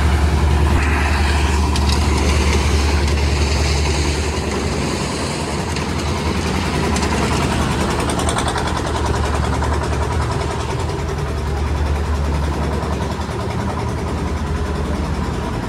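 Engine of a concrete mixing machine running steadily on a roof-slab pour, a loud low drone with a rattling mechanical noise over it.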